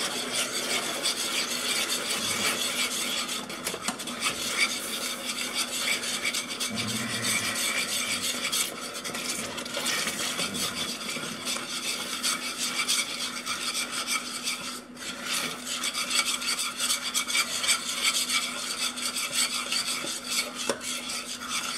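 Metal spoon stirring and scraping a thick, sticky mixture of melted nut butter, mashed banana and honey around a stainless steel saucepan, with a continuous rasping scrape against the pan.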